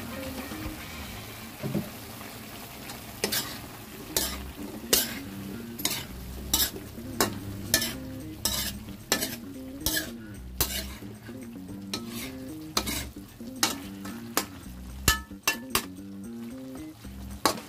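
A metal ladle stirring pork, potatoes and carrots in a wok, knocking and scraping against the pan a little more than once a second from about three seconds in.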